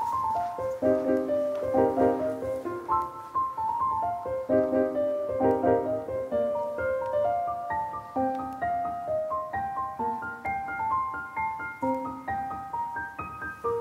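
Background piano music: a gentle melody of single notes over chords.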